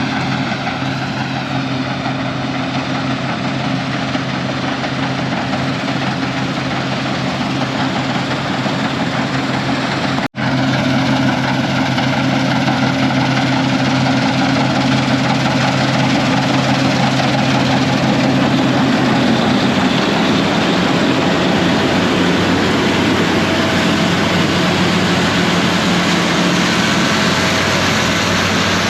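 An engine running steadily over a loud rushing noise. The sound drops out for an instant about ten seconds in, and the engine's pitch shifts after about twenty seconds.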